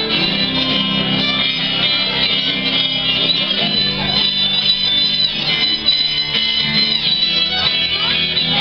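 A folk band playing live, with guitar prominent.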